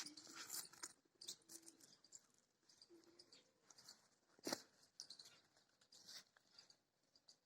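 Faint crunching and rustling of goats feeding, with scattered small clicks and one sharper click about four and a half seconds in.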